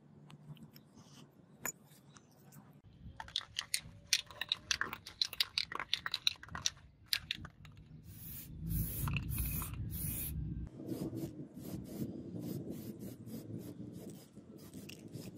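Crinkling and crackling of masking paper and tape being pressed around a knife handle. Then a clear-coat aerosol spray can hisses in several short bursts, followed by a quick run of light ticks.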